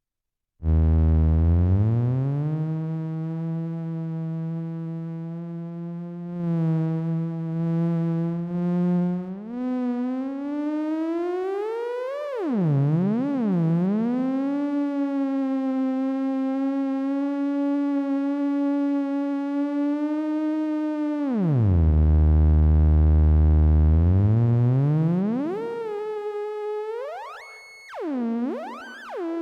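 Budget theremin playing one of its built-in voices: a buzzy tone with many overtones that enters just after the start on a low pitch. It slides up and holds, swoops down and back up around the middle, drops low again later on, and glides up and down in quick swoops near the end, with a little reverb.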